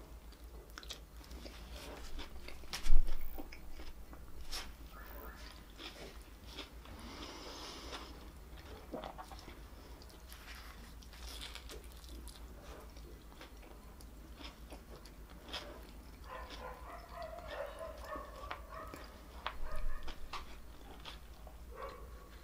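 Close-up biting and chewing of a chicken wrap, with wet mouth clicks and the paper wrapper rustling, and one sharp loud click about three seconds in. Partway through comes a short hummed moan of pleasure.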